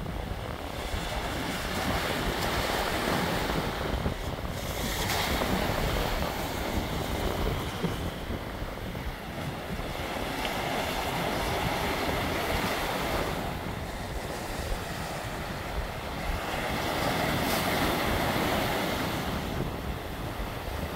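Sea waves breaking and washing over a rocky shore, the surf swelling and easing every several seconds, with wind rumbling on the microphone.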